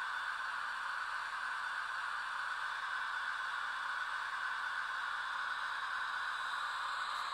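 Steady hiss from a garden-railway sound decoder's loudspeaker mounted on a wagon, an even noise with no pauses or changes.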